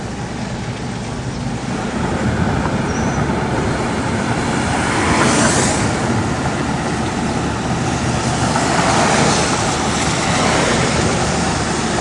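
A car driving: steady engine hum and road noise, with the tyre and wind hiss swelling now and then.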